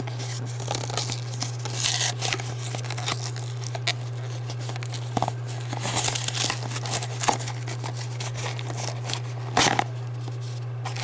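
A D&D Miniatures booster pack being torn open and its packaging crinkled, in scattered crackling bursts with a sharper rip near the end, over a steady low hum.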